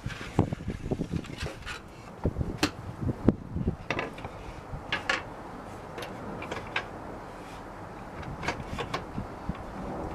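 Scattered knocks and clatter, like wood pieces being handled and set down at a table saw, with the blade stopped. The knocks are irregular, some sharper than others, over a low steady background.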